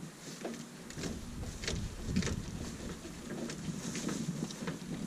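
Scattered clicks and knocks of a bottle jack being set and worked under the rear of a car, over a low rumble.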